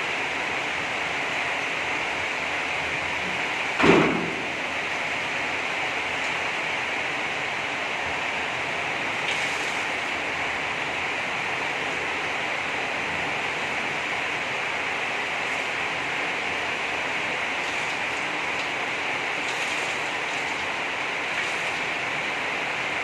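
Steady hiss of heavy rain, with a single thump about four seconds in.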